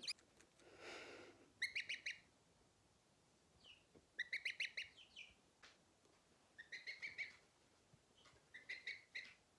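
Baby poultry peeping in quick runs of high, clipped peeps, four runs a couple of seconds apart. A soft rushing noise comes near the start, and a single click in the middle.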